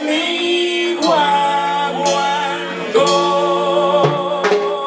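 Live salsa band music: horns and voices hold sustained chords that change about once a second, with a few sharp percussion hits.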